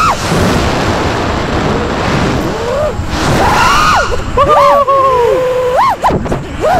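FPV freestyle quadcopter's brushless motors and propellers, heard from the drone's onboard camera. A rush of wind noise comes first as it dives. Then comes a whine whose pitch rises and falls sharply as the throttle is punched and chopped.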